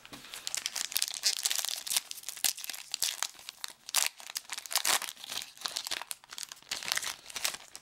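Crinkling and tearing of a baseball card pack's plastic foil wrapper as it is opened: a dense, irregular crackle.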